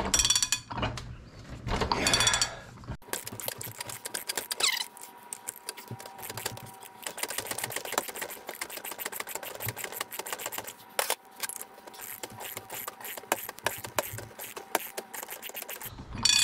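Hand ratchet wrench clicking rapidly and steadily as it spins a fine-threaded nut off the piston end of a hydraulic hoist cylinder rod, after a few louder sounds in the first three seconds.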